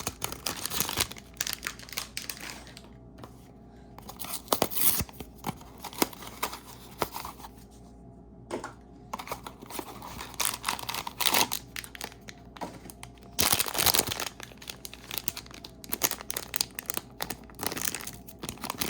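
Hands tearing open a cardboard blind box and rustling the wrapping inside: irregular tearing and crinkling with sharp clicks, broken by short pauses.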